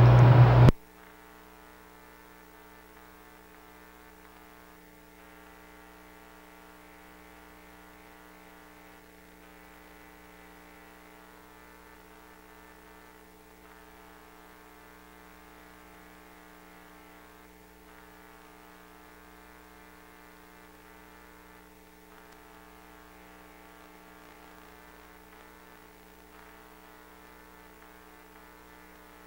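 Faint steady electrical hum made of several fixed tones, unchanging throughout, from the pipe-inspection camera rig's electronics.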